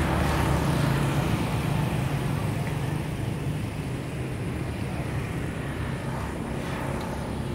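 A low engine drone, loudest in the first second or two and then slowly fading as it moves away.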